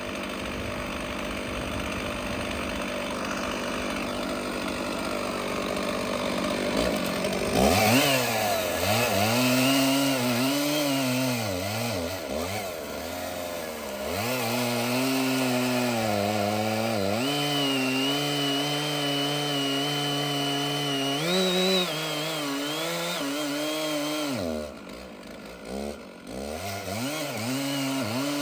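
Stihl 066 two-stroke chainsaw cutting through a big red oak log. It makes a rough, steady sound for the first several seconds. From about a quarter of the way in, the engine note rises and sags as the saw works under load, and the revs dip briefly twice before picking up again.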